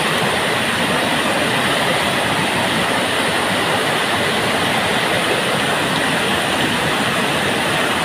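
Waterfall with white water pouring over rock ledges, a steady, even rush of water with no change in level.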